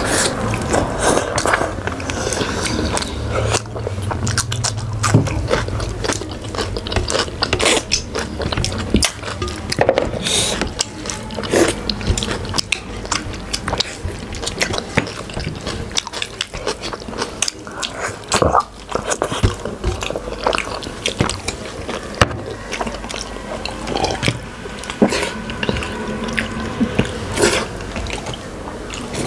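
People eating nehari, biting and chewing slow-cooked bones soft enough to eat. There are scattered sharp clicks and crunches throughout.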